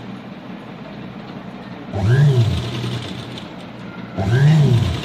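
Electric sewing machine stitching fabric in two short bursts, about two seconds in and again near the end, the motor's pitch rising and falling with each run.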